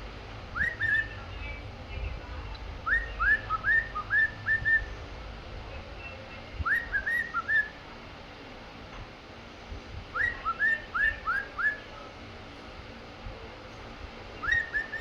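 A male cockatiel whistling its courtship song: bursts of two to six short, quickly rising whistle notes, repeated five times with pauses between them.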